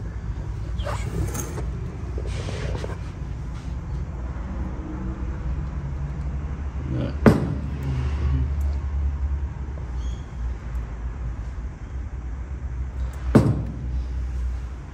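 Handling noise from a model road roller being moved about on a wooden workbench: brief rustling, then two sharp knocks about six seconds apart, over a steady low rumble.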